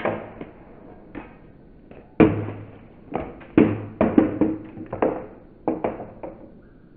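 Small parts of a taken-apart camera being picked up and set down on a bathroom counter: a string of about a dozen sharp taps and knocks at uneven intervals, slightly echoing.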